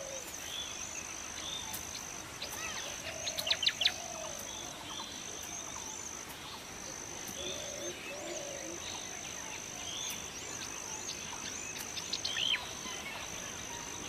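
Grassland ambience: a steady high-pitched insect drone with scattered bird chirps, including a quick run of bird calls about three and a half seconds in and another near the end.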